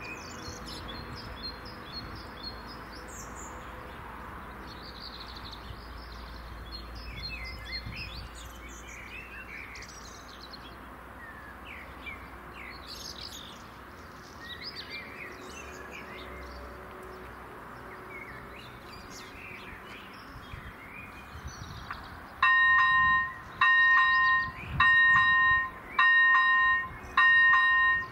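Small birds chirping over a low outdoor hum. About 22 seconds in, a level crossing's electronic warning bell starts: a loud two-tone ding repeating about once a second, warning of an approaching train.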